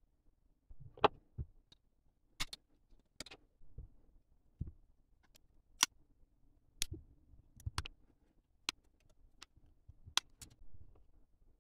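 Plastic Gunpla model-kit parts being handled and assembled: about a dozen sharp, irregularly spaced clicks and snaps, with soft handling rustle between them.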